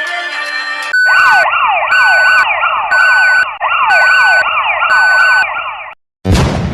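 Electronic siren-like alarm sound: quick falling pitch sweeps repeated several times a second, with a steady beep cutting in and out about once a second. A short noisy burst follows near the end.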